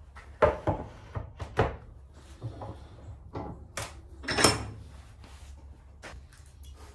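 A wooden board holding sharpening plates set down on a workbench and shifted into place with several quick wooden knocks. A louder clank with a short metallic ring follows as the metal bench vise is worked to clamp the board.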